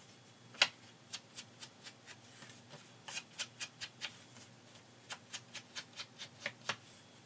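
Round foam ink blending tool swiped in short, quick strokes along the edges of a paper tag, inking the edges: a run of brief scuffs on the paper, a couple to a few a second with short pauses, the strongest about half a second in.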